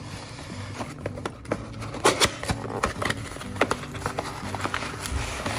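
Small cardboard box being handled and opened, its flaps pulled back: scattered short clicks, taps and rustles, the sharpest about two seconds in.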